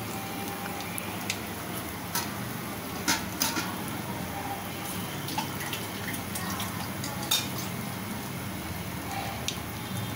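Battered nendran banana fritters (pazham pori) deep-frying in hot oil in an aluminium kadai: a steady sizzle of bubbling oil with scattered crackles and a few sharper pops, as the first side cooks before turning.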